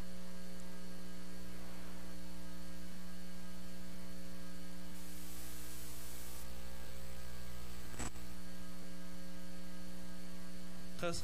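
Steady electrical mains hum, a low buzz with several overtones, with a single sharp click about eight seconds in.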